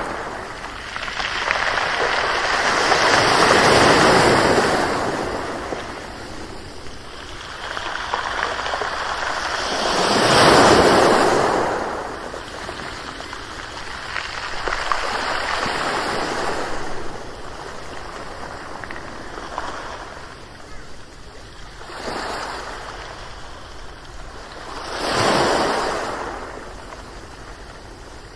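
Ocean waves breaking on a shore, each surge of surf swelling and washing out over a few seconds, with the biggest breakers about four seconds, ten seconds and twenty-five seconds in.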